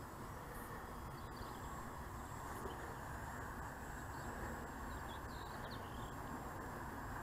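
Steady low rushing wind noise on the microphone in an open field, with a few faint bird chirps about a second in and again past the middle.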